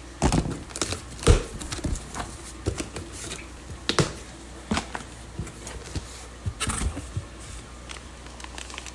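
Utility knife slitting packing tape on a cardboard shipping box, with irregular scrapes, clicks and knocks as the cardboard is handled and the flaps are pulled open. The loudest knock comes just over a second in.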